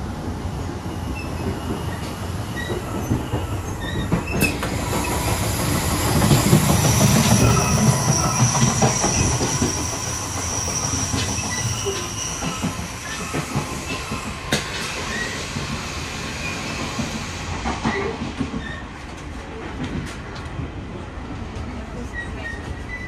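Train running on rails with steady rumble and scattered track clicks. A high-pitched wheel squeal rises about six seconds in and lasts some seven seconds, while the running noise is at its loudest.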